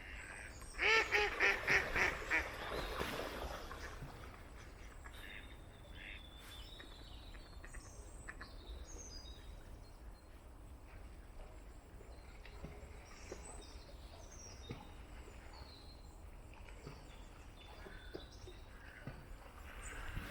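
A duck quacking in a quick run of about six loud calls about a second in, followed by faint, scattered chirps of small birds.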